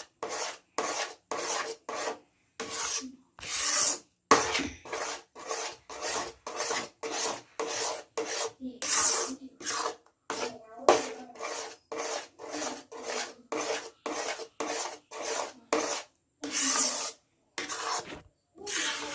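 A ladle scraping back and forth across the bottom of a pan, stirring thick almond and cashew halwa paste, about two strokes a second, with a few longer, louder sweeps.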